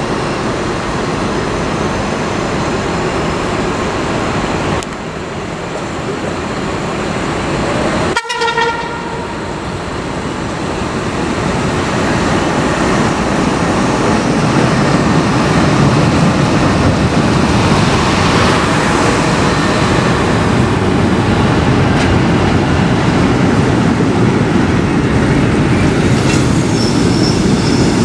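Vintage electric locomotive-hauled passenger train running along the platform: steady rumble of wheels and running gear, with one short horn toot about eight seconds in. The running noise then grows louder as the coaches pass close by, and a high, thin wheel squeal starts near the end.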